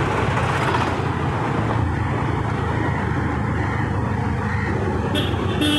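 Motorbike engine running steadily while riding, with wind rushing over the microphone and road traffic around it; a short high tone sounds near the end.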